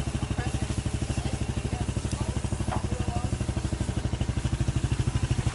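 Sport go kart's small engine idling, a steady, rapid, even chugging pulse that holds constant throughout.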